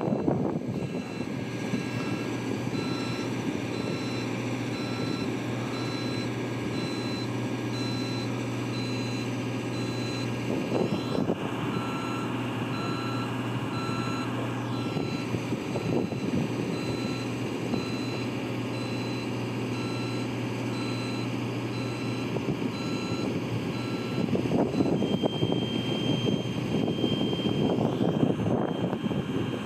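A JLG 660SJ telescopic boom lift's engine running steadily while its motion alarm beeps in an even, repeating rhythm as the boom moves. Near the end a different beep tone takes over, in longer pulses.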